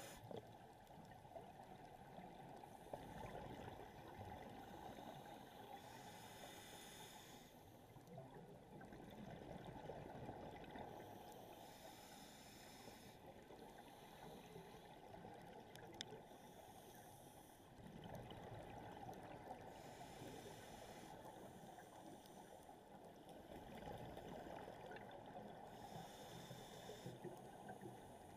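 Faint muffled underwater noise heard through a camera housing: a steady low water rush, with a hiss of a scuba diver's exhaled bubbles coming back every three to five seconds.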